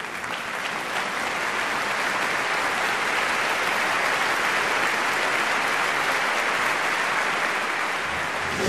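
Audience applause that swells in at the start and then holds steady. Near the end a low throb begins under it.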